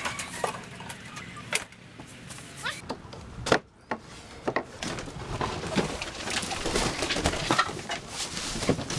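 A few wooden knocks and clacks as a wooden sliding latch on a chicken coop door is worked open, then a flock of Rhode Island Red hens clucking and bustling as they crowd out of the coop.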